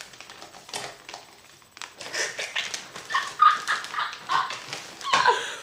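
Short high-pitched animal yips and whimpers, several a second from about two seconds in, over light rustling and clicks.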